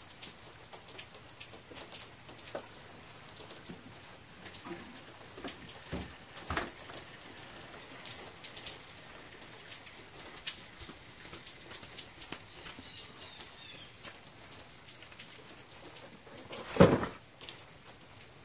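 Old engine oil dripping and trickling from a tipped-over Briggs & Stratton Quantum mower engine into a plastic tub as the crankcase drains for an oil change, a faint patter of small drops. One much louder thump near the end.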